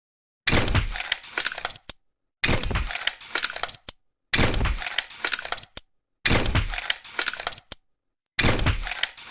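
Tranquilizer pistol shot sound effect, played five times about two seconds apart. Each shot is a sharp crack followed by a short rattling tail and a final click.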